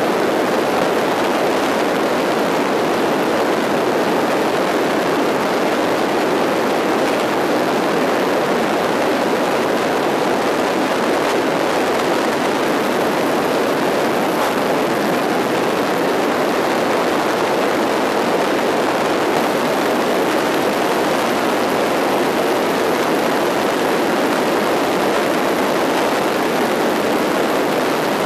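Steady, loud rush of wind and engine noise at the open jump door of an aircraft in flight.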